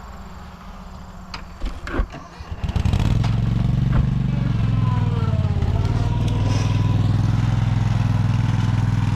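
A few knocks, then an engine starts about two and a half seconds in and runs at a steady idle.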